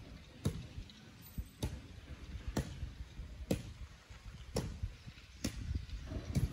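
Sharp knocks repeating evenly about once a second over a low rumbling background.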